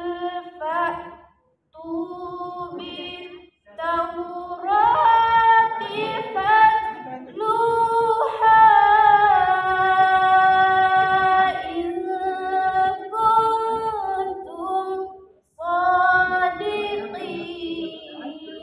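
A young woman chanting Qur'an recitation from memory, unaccompanied, in the melodic tilawah style. She sings in phrases broken by short breath pauses, holding long wavering notes through the middle.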